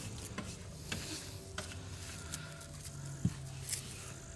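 Dry kindling smouldering on a bed of hot coals, giving off scattered faint crackles and ticks as it heats toward catching, with one sharper pop about three seconds in.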